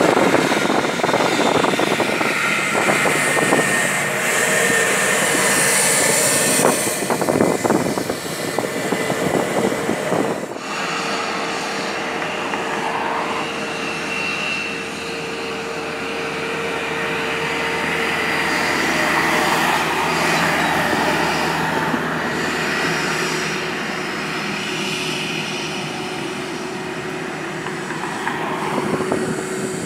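Airbus A320's IAE V2500 turbofan engines running at low power as the airliner taxis: a steady whine over a rush of jet noise. The sound changes abruptly about ten seconds in, then carries on steady.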